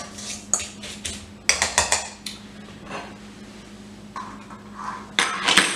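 Stainless steel mixing bowl clinking and scraping as it is handled on the counter. There are several separate knocks in the first two seconds and a louder cluster of clanks near the end as the bowl is lifted.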